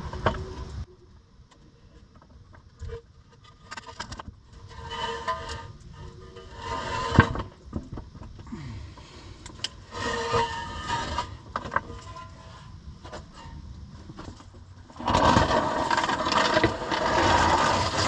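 Intermittent handling and work noise: scraping, rustling and a few sharp knocks, with a louder stretch of scraping and rustling over the last few seconds.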